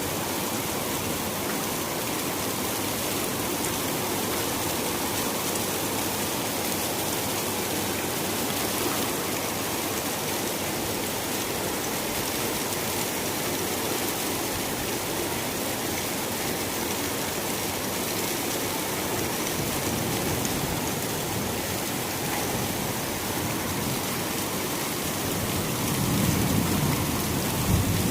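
Steady rain falling, an even hiss of many drops, growing a little louder with a low rumble in the last two seconds.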